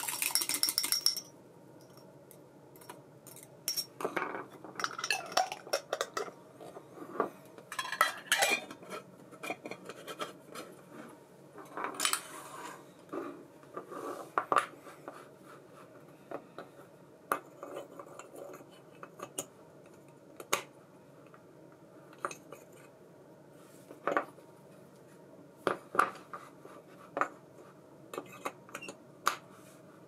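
Small metal parts of a baitcasting reel clicking and clinking as they are handled, in irregular bunches of sharp clicks with a short hissy rattle in the first second or so.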